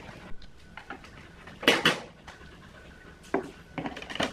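A series of sharp clicks and knocks from a plastic power strip and plug being handled on an amplifier's metal lid, the loudest a close pair about a second and a half in, with a cluster of clicks near the end as the plug is pushed into the strip.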